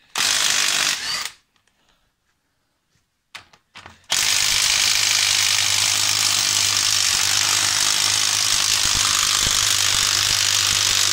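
Cordless impact tool driving a socket on the cylinder head bolts of a Chevy 235 straight six, loosening them. It runs in a burst of about a second, stops, gives a couple of short blips, then runs steadily for about eight seconds.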